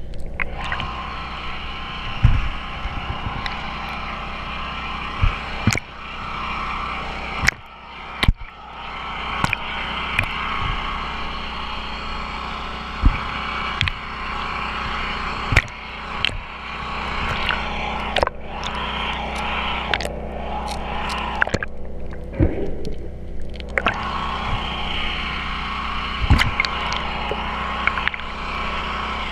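Underwater sound through a GoPro's waterproof housing: a steady muffled rush of water over a faint low hum, broken every few seconds by sharp knocks and clicks.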